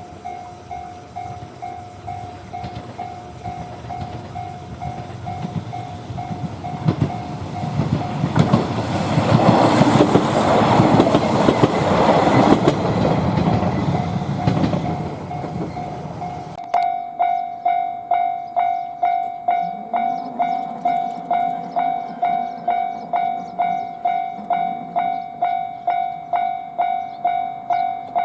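Japanese level-crossing warning bell ringing steadily at about two strokes a second while a train passes, its running noise rising to a peak and fading away. About two-thirds of the way through the bell suddenly becomes louder and clearer.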